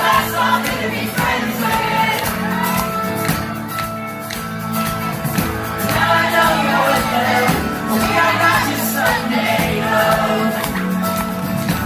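Live band playing a song, with a lead voice singing over drums and acoustic and electric guitars.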